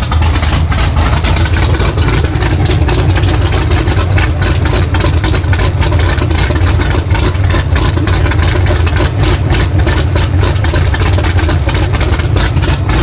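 Supercharged 427 LSX V8 with a big custom-grind race cam idling loud and steady with a choppy, uneven lope, exhausting through open headers on its first start after the build.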